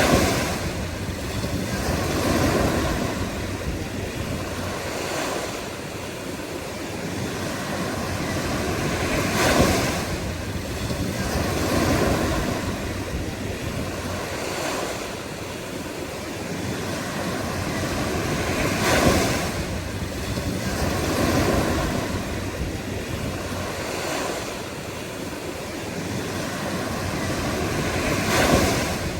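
Ocean surf: waves breaking and washing up the shore in a continuous rush, with a louder wave crashing about every nine or ten seconds and smaller ones in between.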